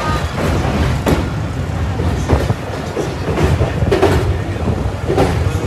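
Passenger train running at speed, heard from inside the coach: a continuous low rumble with irregular clacks of the wheels over the rail joints.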